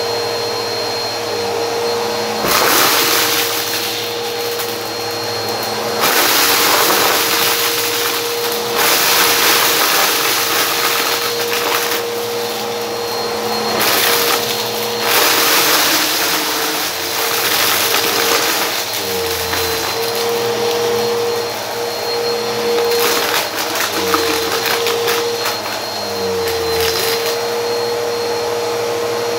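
Bissell Helix upright vacuum cleaner running on carpet, a steady motor hum with louder rushing surges every few seconds as it sucks up a pile of small rubber bands and plastic bits.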